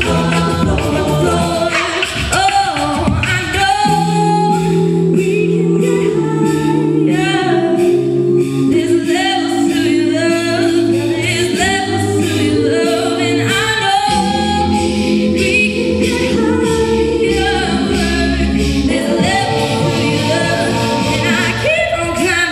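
Mixed-voice a cappella group singing: the backing voices hold chords that shift every second or two under a lead melody, with vocal percussion ticking out a beat.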